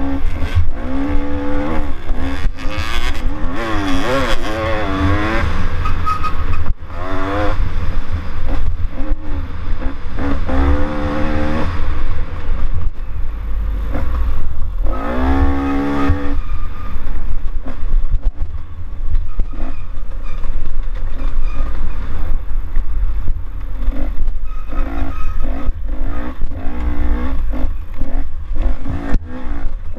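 Dirt bike engine revving up and falling back over and over as it is ridden hard over a rough trail, with one long climb in revs about halfway through. Heavy wind rumble on the microphone and scattered knocks from the bumps run underneath.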